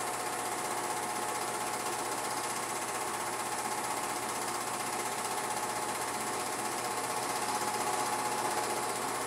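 Film projector running: a steady mechanical clatter with a whir, typical of an old home movie played back through the projector.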